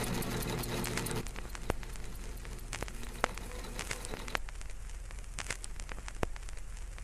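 Vinyl record surface noise: steady hiss and crackle with scattered pops as the stylus rides the groove. A held music chord stops about a second in.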